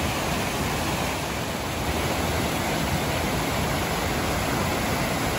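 Small mountain waterfall cascading over rocks: a steady rush of falling and splashing water.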